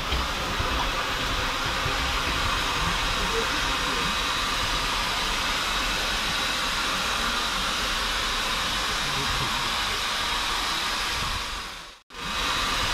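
Steam hissing steadily in the cab of a standing 0-6-0 steam tank engine. The hiss drops out for an instant near the end.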